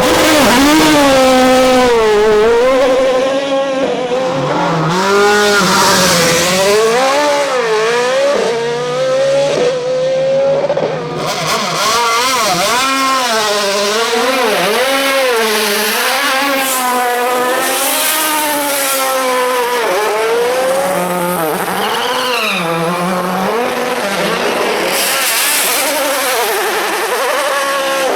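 Race car engines revving hard and launching from a standstill, the pitch swinging up and down with each blip of the throttle and each gear change.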